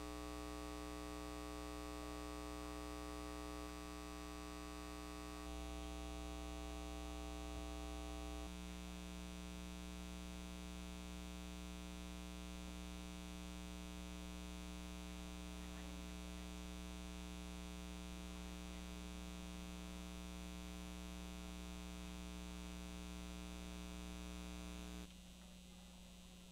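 Low, steady electrical hum and buzz whose tone changes abruptly a few times, dropping quieter near the end.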